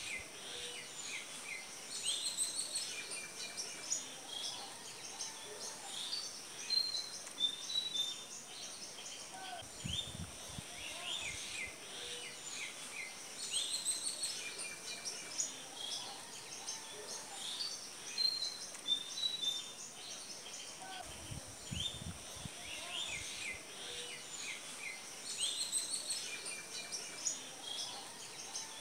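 A chorus of small birds chirping and twittering over a steady high hiss. The same stretch of birdsong comes round again about every eleven or twelve seconds, as in a looped recording.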